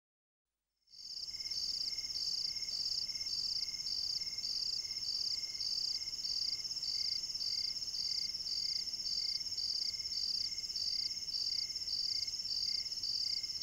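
Crickets chirping as night ambience: a steady high trill with a chirp pulsing about twice a second. It fades in after about a second of silence.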